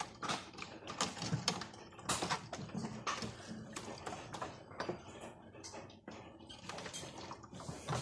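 Toy Miele washing machine running its rinse: the small drum motor and gears clicking and rattling at an irregular rate as the drum turns, with water sloshing around the socks.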